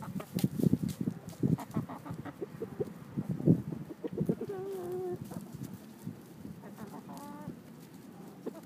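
Backyard chickens clucking. A run of low, short clucks fills the first half, then a wavering drawn-out call comes about halfway through, and a brief quick run of notes follows a little later.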